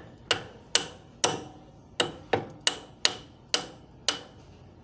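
Light hammer taps driving a new forklift kingpin bearing into its seat in the steering knuckle: about nine sharp metallic strikes, two to three a second with a short pause near the middle, each with a brief ring.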